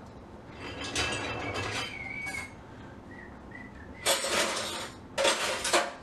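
Dishes and utensils clinking and scraping in a kitchen sink during hand dish-washing, with a brief ringing clink after about two seconds. Near the end come two louder hissy bursts about a second apart.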